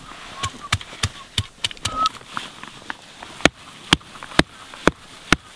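A hand-held stone pounding a boiled layer of horse's hoof fungus laid on a rock, beating it flat into amadou: a run of sharp knocks, about three a second at first, slowing to about two a second in the second half.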